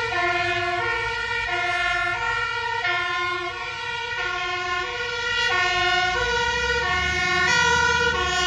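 Two-tone emergency-vehicle siren switching between a low and a high note about every half second, over a low rumble.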